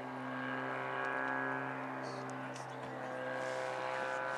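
Gasoline engine of a giant-scale RC aerobatic plane in flight, a steady drone whose pitch rises and falls slightly with the throttle.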